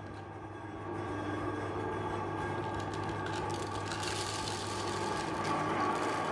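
Electric meat grinder running steadily with a constant motor hum; a harsher, hissier grinding noise builds up about three to four seconds in.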